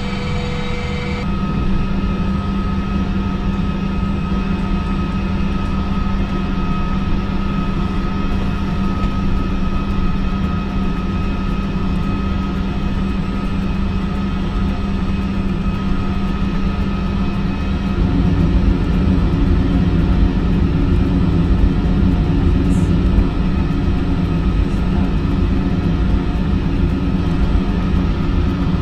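Simulated jet cabin noise from a full-motion flight simulator: a steady engine rumble and whine with a few steady tones. A higher tone cuts off about a second in, and the low rumble grows louder about eighteen seconds in.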